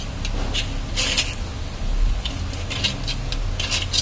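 A metal blade scraping flaking paint off a plaster wall in short, quick strokes, each a brief scratch, several a second, the loudest about a second in and near the end. A low steady hum runs underneath.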